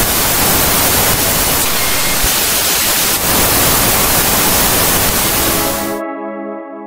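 Loud, steady TV-style static hiss that cuts off suddenly about six seconds in, followed by a held musical chord as the intro music begins.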